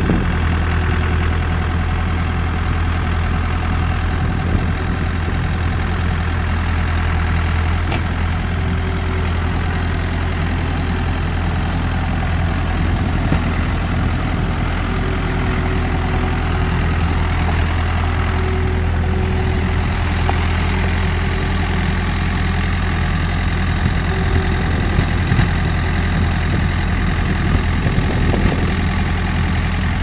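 Perkins four-cylinder diesel engine of a 1999 Scattrak 1750D skid steer running steadily.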